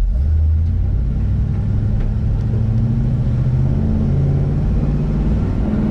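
Chevrolet El Camino's engine and exhaust running as it pulls away gently under light throttle, the engine note rising slowly over several seconds. The car is on a light break-in drive for freshly rebuilt rear-end gears.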